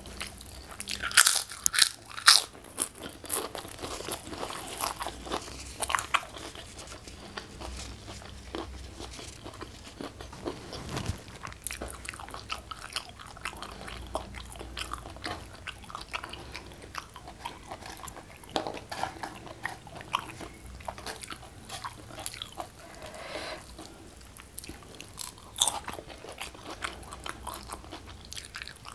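Close-miked crunching and chewing as a woman bites into a crisp pink kerupuk (Indonesian cracker) and eats. The loudest crunches come in a quick cluster a second or two in, followed by steadier chewing with scattered smaller crunches.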